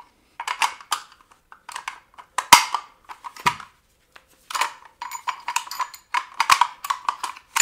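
Steel parts of a KGP-9 submachine gun clicking, scraping and knocking as its bolt is worked back into the receiver, with a sharp metallic knock about two and a half seconds in.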